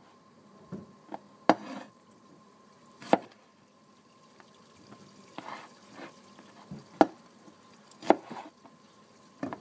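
Knife blade knocking on a wooden cutting board as strawberries are cut in half: a handful of sharp, irregularly spaced knocks, some louder than others.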